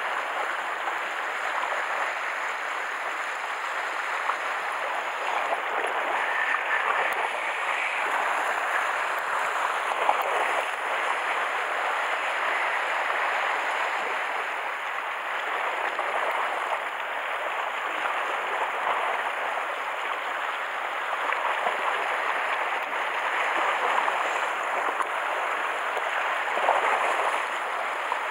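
Sea water washing against shore rocks: a steady rushing hiss of small waves that swells and eases slowly.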